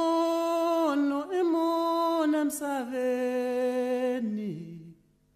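One voice singing long held notes in a slow, chant-like melody, stepping down in pitch from note to note and fading out near the end.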